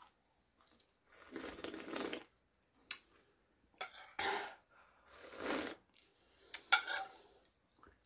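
A person slurping the leftover dressing straight off the rim of a plate in three main slurps, with a few light clicks of a spoon on the plate.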